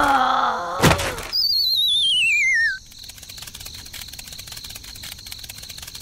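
Cartoon sound effects: a short squeaky character voice and a sharp knock, then a loud descending warbling whistle of about a second and a half, the classic cartoon falling effect. After it only a faint steady hiss remains.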